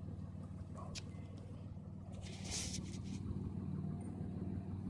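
Vehicle engine idling, a steady low hum, with a brief hiss about two and a half seconds in.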